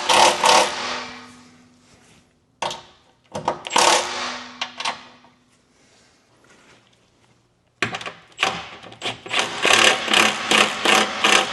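Tool working the bolts of a steel gas tank skid plate: three runs of rapid, uneven mechanical clicking and rattling, a few seconds each, with short pauses between.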